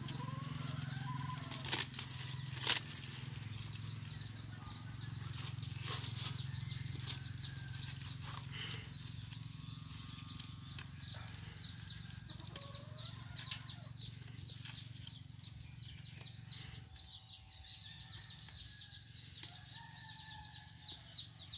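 Heat-delaminated computer circuit board being pried apart into its fibreglass and copper layers, a fine crackling and scraping with a few sharp snaps in the first six seconds. A steady high-pitched whine runs underneath.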